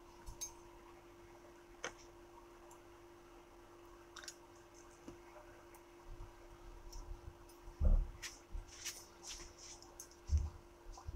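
Scattered light clicks and taps of small tools handling a smartwatch's parts, with two dull thumps in the second half and a faint steady hum underneath.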